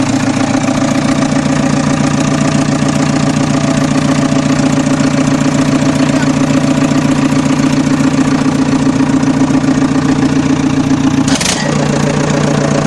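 JCB 3DX backhoe loader's diesel engine running at a steady, loud note. About eleven seconds in there is a sharp click, and the engine note changes slightly after it.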